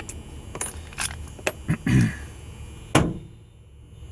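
Small metal clicks and knocks from deadbolt lock parts being wiggled and handled to seat them in the locking slot, half a dozen irregularly spaced, the sharpest about three seconds in.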